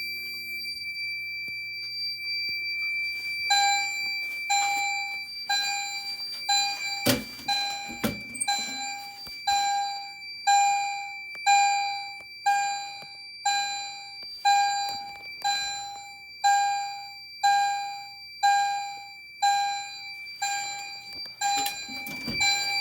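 Fire alarm chime strobes sounding in alarm after the NH100 pull station is activated: a ringing, decaying chime struck about once a second, starting a few seconds in over a steady high-pitched tone. A couple of thumps sound about seven and eight seconds in.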